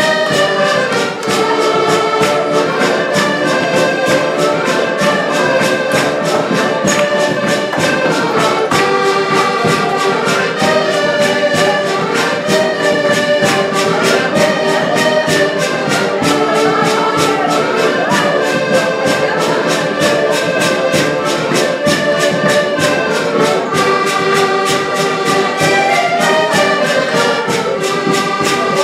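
Ensemble of accordions playing a dance tune together, with a steady beat.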